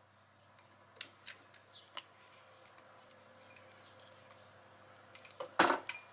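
Silicone spatula scraping soft margarine from one bowl into a mixing bowl, with a few light clicks and knocks against the bowls. A louder cluster of knocks comes near the end.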